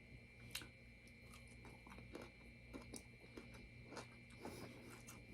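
Faint close-up chewing of food, with soft irregular mouth clicks a few times a second.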